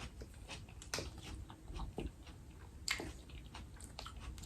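A person chewing food with wet mouth sounds, broken by a few sharp smacks or clicks about a second apart.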